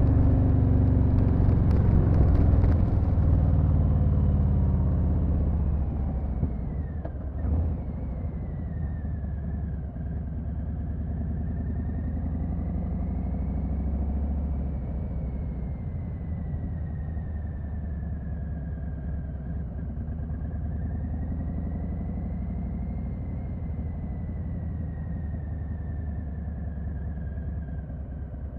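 2020 Harley-Davidson Sport Glide's Milwaukee-Eight 107 V-twin running, louder at first with the revs falling away over the first few seconds, then settling to a steadier, quieter run. A short knock sounds about seven seconds in.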